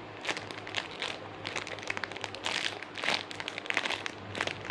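Irregular plastic crinkling as a squishy toy in its plastic bag is handled and squeezed, with many short crackles.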